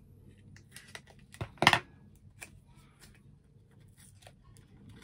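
Hands working at a mascara's packaging to open it: scattered small crinkles and clicks, with one short, loud rasp about a second and a half in.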